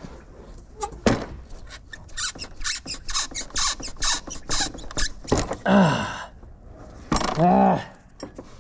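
Hands working plastic and rubber engine-bay parts loose on a John Deere tractor: a sharp knock about a second in, then a quick run of short scraping clicks, followed by two short wordless grunts of effort.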